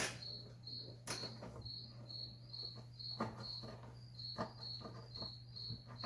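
A cricket chirping steadily, a short high chirp repeating about two to three times a second, with a few faint knocks from work on plastic heater ducting.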